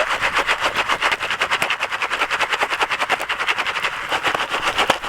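Popcorn popping in a pan over a campfire: a dense, rapid string of pops, about ten a second, over a steady sizzling hiss.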